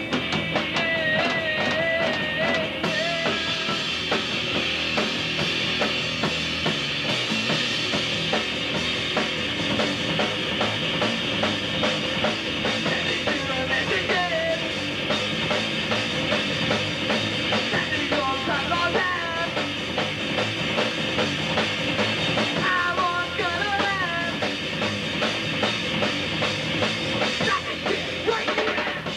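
Hardcore punk band of electric guitar, bass guitar and drum kit playing live, loud and dense, with the drums keeping a fast, steady beat. A few held, wavering high notes stand out near the start, in the middle and toward the end.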